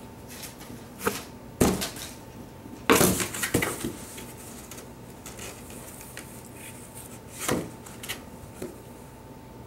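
A Shetland sheepdog puppy crinkling crumpled brown packing paper and knocking about an open cardboard box: a few sudden bursts of paper crackle and cardboard thumps and rustles, loudest about three seconds in.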